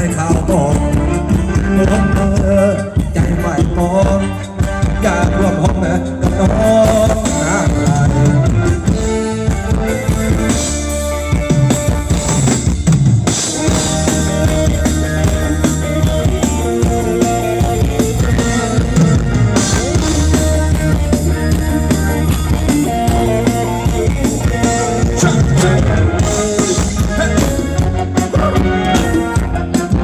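Live band playing Thai ramwong dance music, with a drum kit keeping a steady beat and a singer.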